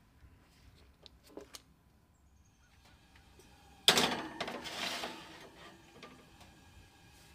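Metal baking sheet set onto an oven's wire rack with one sudden clank about halfway through, then a scraping slide as it is pushed in, fading out. A few light clicks come before it.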